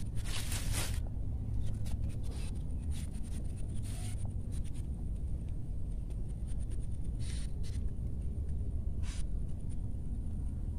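Leafy ground vines rustling as they are pulled and handled by hand, stopping about a second in, followed by a few scattered short rustles and scrapes, over a steady low rumble.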